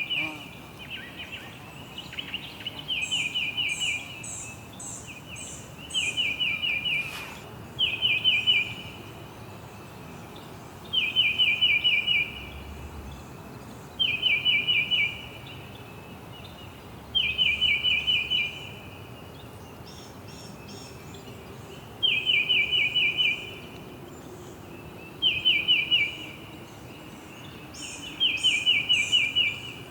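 A bird singing the same short phrase of rapid chirps over and over, about once every three seconds.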